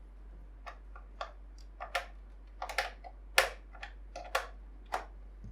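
Keys pressed at an uneven pace on a tenkeyless mechanical keyboard fitted with Kailh black linear switches: about fifteen short, separate key strikes.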